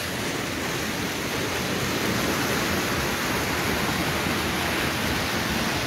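Rushing water of a small, fast river pouring over rocks in a little waterfall: a steady, even rush, a little louder after about two seconds.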